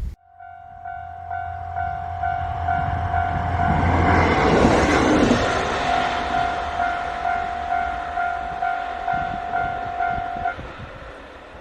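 Japanese level-crossing warning bell ringing at about two strokes a second while a KiHa 40 diesel railcar approaches and passes over the crossing, loudest about five seconds in. The bell stops near the end.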